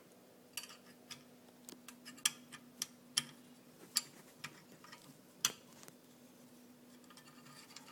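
Irregular light metallic clicks and taps as a small fiddly part is handled and fitted onto a Mamod SE2 toy steam engine after the boiler is filled, about eight sharp ticks spread over the few seconds.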